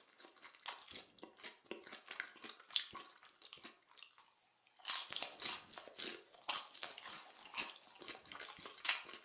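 A person chewing popcorn: irregular crisp crunches, sparser for a moment, then a denser run of crunching about halfway through.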